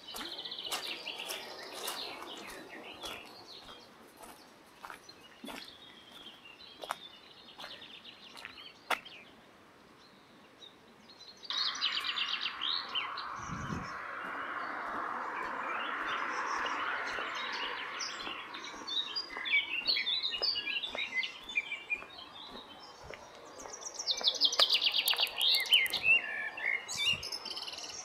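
Songbirds singing and trilling over crunching footsteps on gravel. About a third of the way in, a steady rush of water starts abruptly, and a loud, fast bird trill comes near the end.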